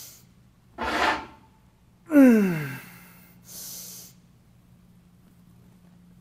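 A man breathing forcefully. There is a sharp breath about a second in, then a louder voiced exhale that falls in pitch, like a heavy sigh, just after two seconds, and a softer breath in at about three and a half seconds. A faint steady hum runs underneath.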